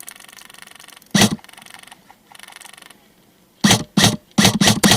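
Airsoft electric guns firing: stretches of rapid full-auto rattle, with sharp single shots about a second in and five more in quick succession near the end.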